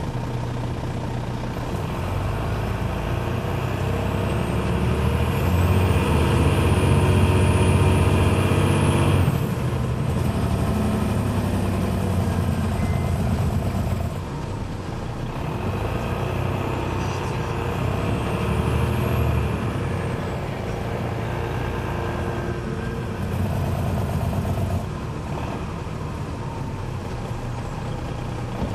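Inside the cabin of a 2001 MCI D4000 coach, its Detroit Diesel Series 60 engine pulls hard with a high whine rising with engine speed, then cuts back sharply about nine seconds in. The engine builds again, peaking a little before twenty seconds, and eases off.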